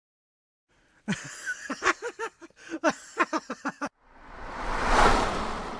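Cartoon sound effects: about a second in, a quick run of short, pitch-bending squeaky calls lasting about three seconds, then a whoosh that swells and fades away.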